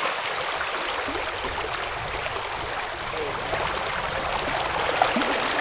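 Creek water running steadily, an even rushing wash with no breaks.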